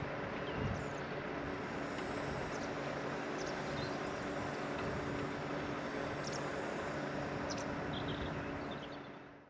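A vehicle engine running steadily with a constant low hum and a few faint clicks, fading out near the end.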